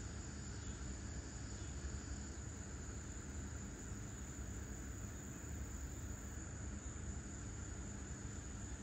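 Steady high-pitched chorus of insects, over a low steady rumble.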